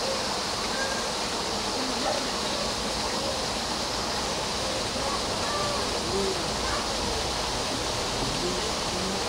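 Steady outdoor background hiss with faint, indistinct chatter of distant people.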